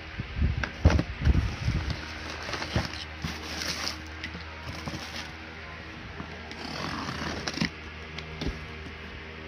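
Handling paper-wrapped firecrackers and a cardboard box: a cluster of knocks and thuds in the first two seconds, then rustling and scraping of cardboard and plastic wrap, with a box cutter working at the packing tape near the end. A steady low hum runs underneath.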